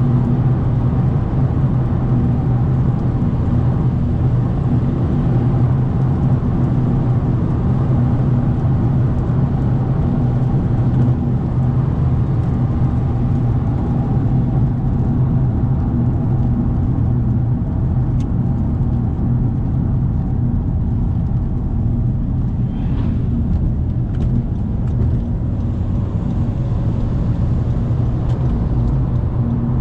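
Car engine humming steadily with tyre and road noise, cruising at a constant highway speed.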